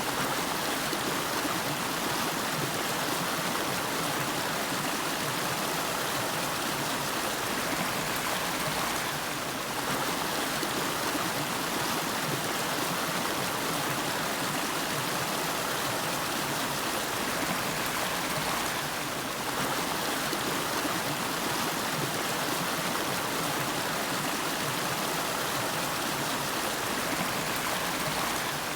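Running water of the Nariki River, a small river, rushing steadily and evenly.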